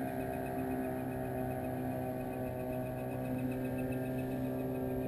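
A steady mechanical hum: several even tones held without change, with no pauses or knocks.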